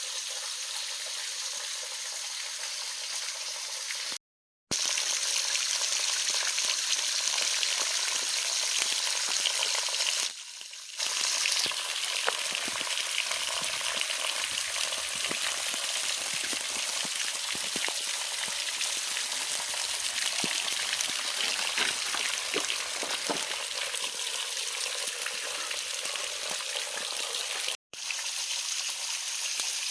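Steady rushing hiss of a waterfall's falling water and spray, broken by two brief gaps of silence.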